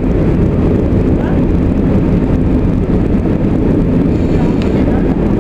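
Uerdingen VT 98 railbus running along the line at speed, heard from inside: a steady drone from its underfloor diesel engines mixed with wheel-on-rail rumble.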